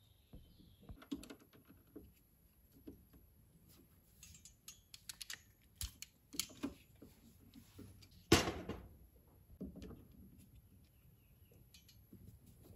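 Scattered small clicks, ticks and rustles of hands working a hand ferrule crimping tool on the ends of PV wires, with one sharper, louder snap a little past eight seconds in.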